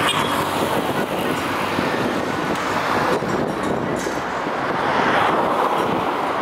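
City road traffic: a steady wash of passing vehicles, swelling as cars go by near the start and again about five seconds in.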